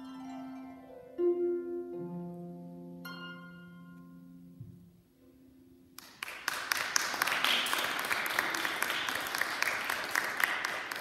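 Concert harp playing its last few plucked notes, which ring on and die away. About six seconds in, an audience starts applauding.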